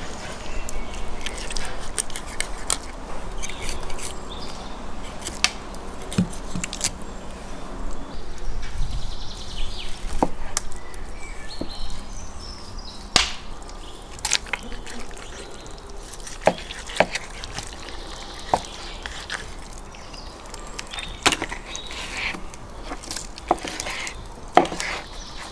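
A kitchen knife scraping and cutting through a large whole salmon on wooden cutting boards, with irregular sharp clicks and knocks as the blade strikes the board.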